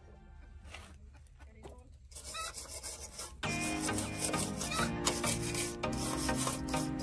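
Quick repeated rasping strokes of a hand file or abrasive rubbing on a workpiece, starting about two seconds in. Background music with a beat comes in about a second later.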